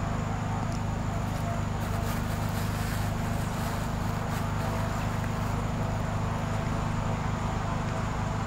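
A steady low hum, unchanging in level, with a thin high whine held above it.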